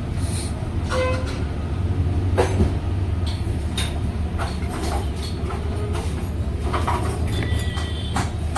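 Scattered metallic clicks and knocks of engine parts and hand tools being handled during timing chain fitting on a small motorcycle engine, over a steady low rumble.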